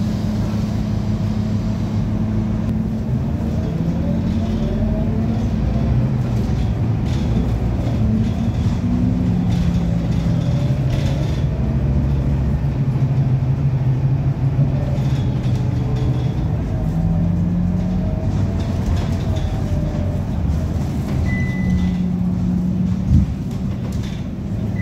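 Diesel double-decker bus engine and gearbox running under way, heard from inside the upper deck, the engine note stepping and gliding up and down as the bus pulls away and shifts gear. The uploader says it doesn't sound right and suspects an engine or gearbox problem. A short high beep near the end and a single knock just after it.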